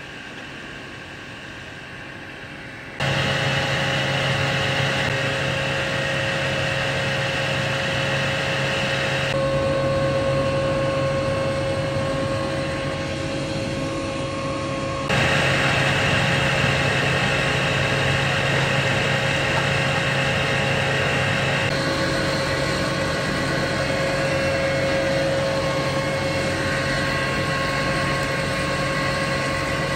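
Steady machine noise with a constant hum, a motor or engine running. It starts suddenly about three seconds in after a quieter hiss, and its tone shifts abruptly a few times.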